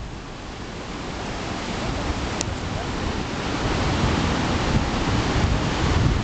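Ocean surf breaking and washing in, a steady rushing noise that grows louder over the first few seconds.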